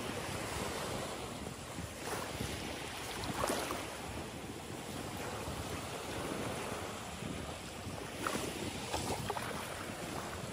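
Small sea waves breaking and washing up over a gravelly shore, the wash swelling louder every few seconds. Wind on the microphone.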